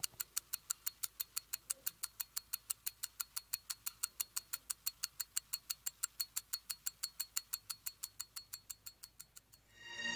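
Mechanical pocket watch ticking steadily, about five ticks a second, fading out near the end. A swelling tone comes in just as the ticking stops.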